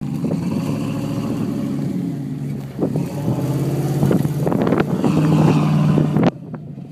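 1989 Ford Bronco's engine revving hard as it accelerates away on dirt, throwing up dust, with scattered knocks and clatter. The engine sound drops off suddenly a little past six seconds in.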